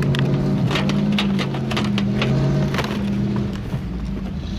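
GAZ-66 truck engine running steadily as it tows a car, with irregular knocks and rattles from the towed car bumping along behind it. The engine tone eases off about three and a half seconds in.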